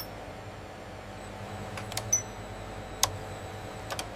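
Steady factory machinery hum with several sharp mechanical clicks, the loudest about two and three seconds in.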